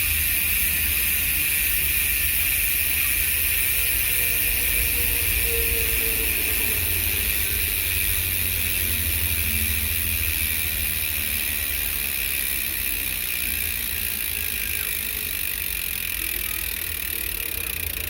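Speedone Soldier bicycle hub freewheeling: its pawls click so fast that they merge into a steady, high buzz, fading slowly as the wheel coasts and slows.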